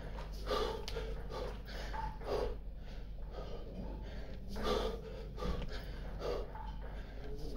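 A man breathing hard from exertion in the middle of a kettlebell thruster set, with forceful breaths about once a second, some louder than others. A steady low hum runs underneath.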